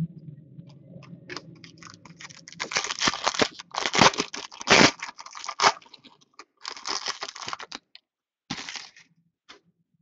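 Foil wrapper of a hockey card pack being torn open and crinkled in several bursts, starting about three seconds in and stopping about nine seconds in.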